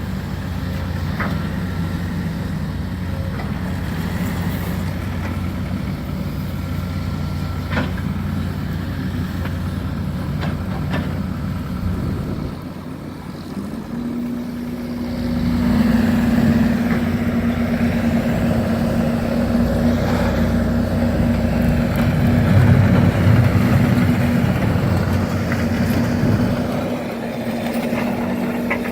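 Diesel engine of a demolition excavator running, with a few sharp knocks in the first half. About halfway through, the engine note rises and holds as it works under load, and the sound gets louder and rougher.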